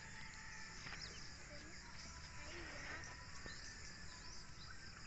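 Faint rural field ambience: insects trilling steadily, with a few faint bird chirps.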